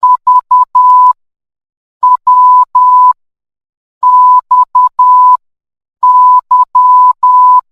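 Morse code sent as a steady beep at about 1 kHz, in short dots and long dashes. The four letter groups spell V, W, X and Y (...- .-- -..- -.--), one letter about every two seconds, as part of the alphabet being keyed in order.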